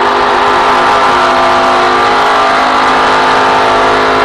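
Stock car's V8 engine held at steady full throttle, heard from inside the cockpit over rushing wind and road noise.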